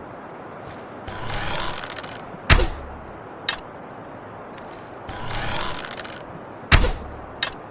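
Bow and arrow being shot twice: each time about a second of creaking, scraping draw, then a sharp snap with a low thump on release, and a small click about a second later.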